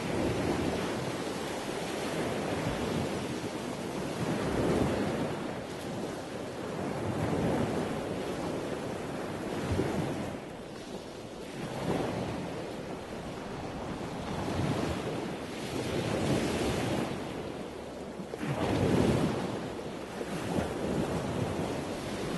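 Wind buffeting the microphone over the sound of sea and waves, swelling and easing every few seconds.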